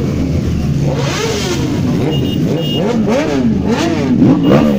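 Superbike engines revved in repeated throttle blips, the pitch swooping up and down many times, quicker and louder in the second half.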